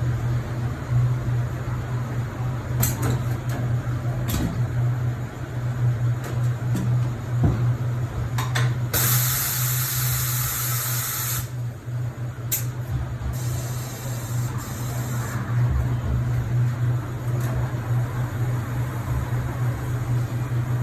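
Compressed air hissing in a strong burst of about two and a half seconds midway, then a fainter hiss, over a steady low hum, with a few sharp clicks of tyre-changing work.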